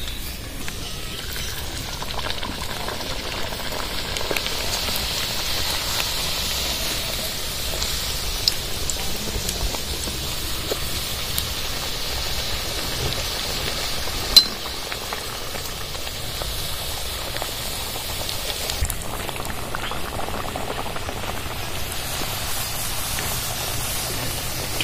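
Luchis deep-frying in hot refined oil in an aluminium kadai: a steady sizzle of bubbling oil as the breads puff up. A single sharp click about fourteen seconds in.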